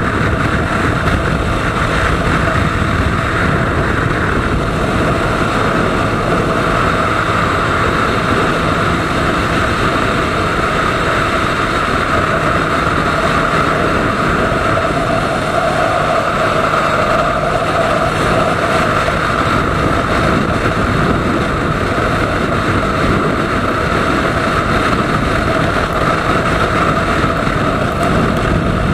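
Steady, unbroken engine and road noise of a Honda Phantom TA200 cruiser motorcycle riding at highway speed, picked up by an action camera mounted on the bike.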